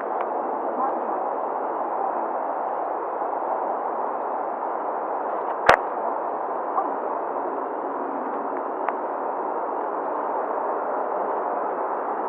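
Steady radio hiss from an airband receiver carrying air traffic control audio, with no transmission, and a single sharp click about six seconds in.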